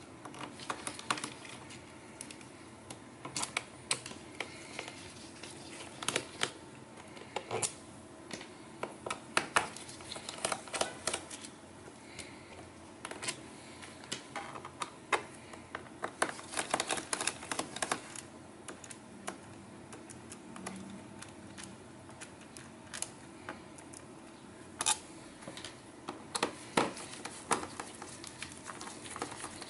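A small screwdriver and gloved hands working the screws of a laptop's plastic bottom cover: irregular sharp clicks and ticks that come in clusters, with short pauses between them.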